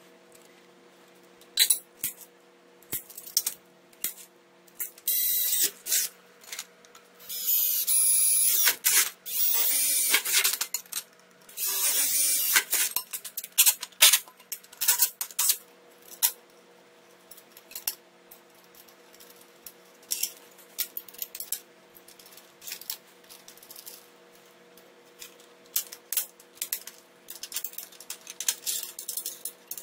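Aluminium sheet-metal parts and small hardware clinking and tapping as they are handled, with several short runs of a Makita cordless drill boring through aluminium plate in the middle, the loudest part.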